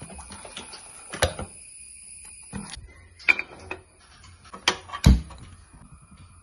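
Scattered clinks and knocks of metal kitchenware: a steel ladle stirring thick batter in a steel bowl, then an unniappam pan handled on a gas stove, with a heavier low knock about five seconds in.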